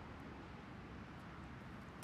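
Faint steady low rumble of outdoor background noise, with a few faint ticks.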